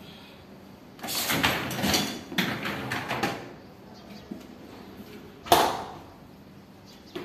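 A built-in dishwasher being handled: about two seconds of metal rattling and sliding from its wire racks and door, then the door shut with one sharp clunk about five and a half seconds in.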